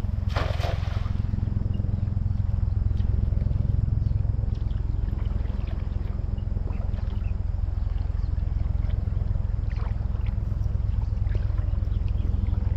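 A steady low outdoor rumble with faint scattered ticks, and a short rush of noise about half a second in.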